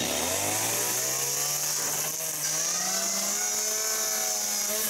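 Two-stroke petrol chainsaw cutting through a board. Its engine pitch drops at the start, climbs steadily over about four seconds, then falls away near the end.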